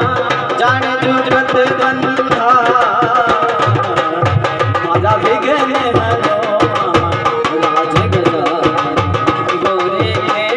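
Instrumental passage of a Hindu devotional bhajan to Ganesh: a tabla-style hand drum keeps a steady rhythm under sustained melody notes.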